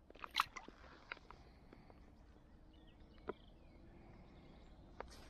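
A perch slipped back into the canal: one short splash about half a second in, then a few faint ticks over quiet bankside background.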